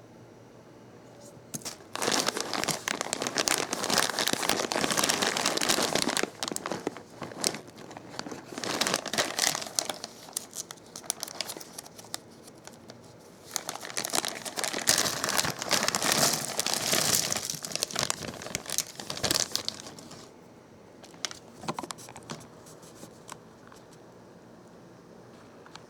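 Plastic packaging crinkling and rustling as it is handled and unwrapped, in three long bouts of crackling with pauses between them, then a few scattered light ticks near the end.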